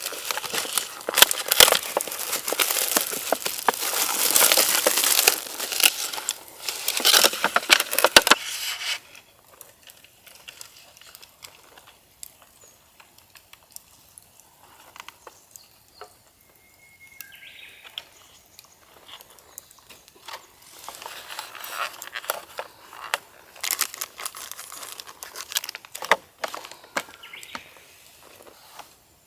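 Crinkling and rustling of something being handled, dense and loud for the first eight seconds, then quiet, then starting again about two-thirds of the way through.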